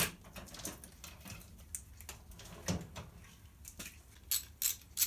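Sharp clicks and light metallic clinks of small motorcycle parts and fittings being handled while an ignition coil is taken off the frame, with a duller knock partway through and a run of sharp clicks, about two a second, near the end.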